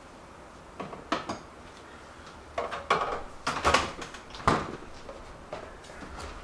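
Kitchen cupboard and dishware being handled: a string of knocks and clatters, two at first, then a busier run of louder ones through the middle, fading to a few faint taps near the end.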